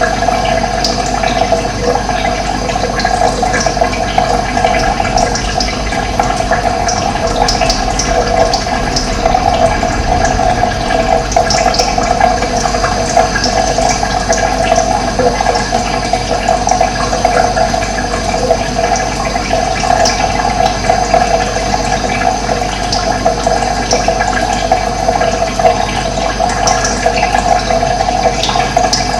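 Running water making a steady, even rush, with short high bird chirps scattered through it.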